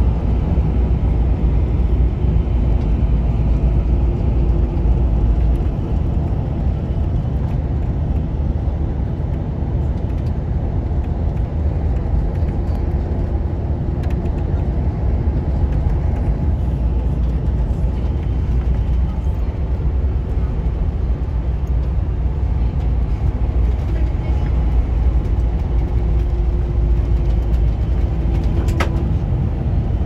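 Steady low engine and road rumble heard from inside a moving tour bus, with a brief click near the end.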